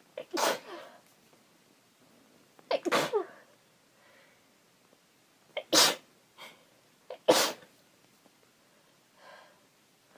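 A woman sneezing four times, roughly two seconds apart, each sneeze a sharp burst preceded by a brief catch of breath.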